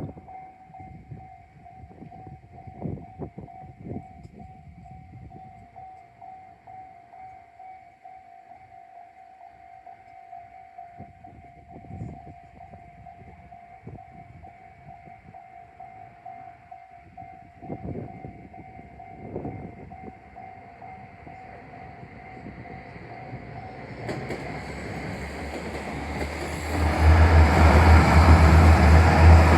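Level crossing warning bell ringing with a steady, evenly pulsing tone. About 24 seconds in, a KiHa 185 series diesel limited express train approaches. From about 27 seconds it passes loudly, with a deep engine rumble and wheel noise on the rails.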